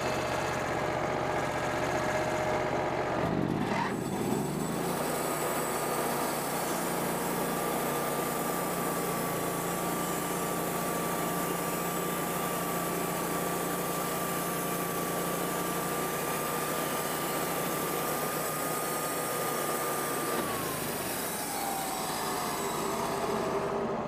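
Wood-Mizer portable bandsaw mill's Kohler engine revving up about four seconds in and holding steady at high speed while the band blade cuts a one-inch slab from a black walnut log. Near the end the engine winds back down.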